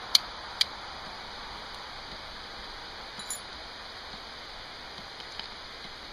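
Flint struck against a hand-forged O1 tool-steel fire striker, throwing sparks onto char cloth: the last two sharp metallic strikes of a quick series come in the first second. A steady faint hiss continues underneath, with one small tick near the middle.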